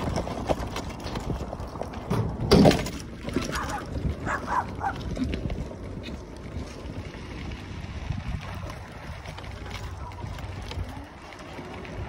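Wind rumbling on the microphone and the tyre noise of a mobility scooter rolling along a gravel road. About two and a half seconds in comes a short loud sound, followed by a few brief higher calls.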